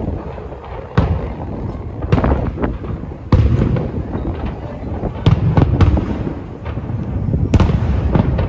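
Aerial fireworks shells bursting in a dense barrage: sharp bangs every second or so over a continuous low rumble of overlapping booms.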